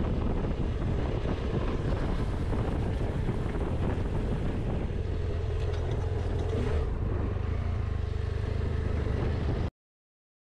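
Motorcycle engine running at steady revs under heavy wind noise on the camera microphone, cutting off abruptly about a second before the end.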